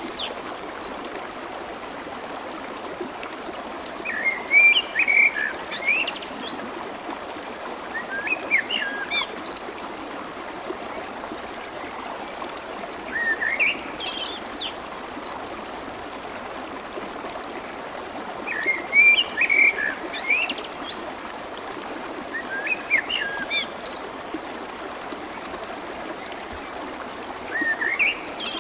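Steady babbling of flowing stream water, with a small bird singing short, rising, chirpy phrases every four to five seconds.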